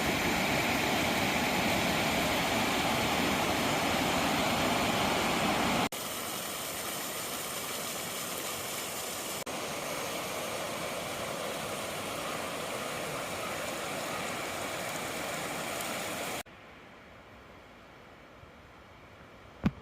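Steady outdoor rushing noise in three abruptly cut stretches, loudest at first and much quieter for the last few seconds, with a single sharp click just before the end.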